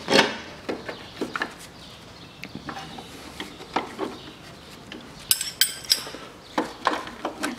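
Hand work on the ribbed accessory drive belt of a VAZ-2110 engine as it is pulled off the loosened alternator pulley: scattered knocks and rubbing of the belt against metal parts. A little over five seconds in comes a quick run of three or four sharp metallic clinks that ring briefly.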